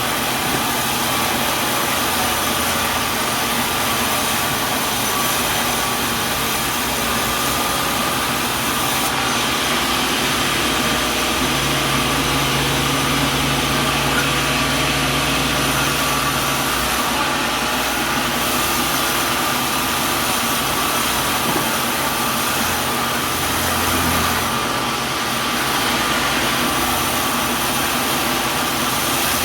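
Sawmill machinery running steadily: an even mechanical din with a low hum that shifts in pitch a few times.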